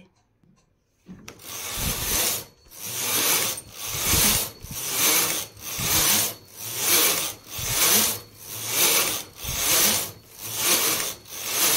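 Domestic flat-bed knitting machine carriage pushed back and forth across the needle bed, a rasping clatter of the needles on each pass as it knits plain rows. Starting about a second in, about ten passes follow at roughly one a second.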